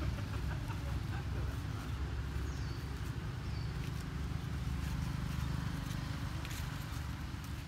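Outdoor forest ambience under a steady low rumble. Light scattered rustles and clicks come from macaques moving on dry leaf litter, and two short high falling chirps sound a few seconds in.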